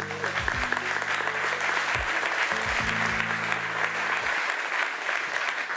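Audience applauding steadily. Low sustained music chords sound underneath and stop after about four seconds.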